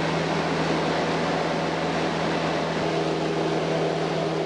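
Light aircraft's engine and propeller running steadily in cruise, heard from inside the cabin as a constant low drone with a wash of air noise.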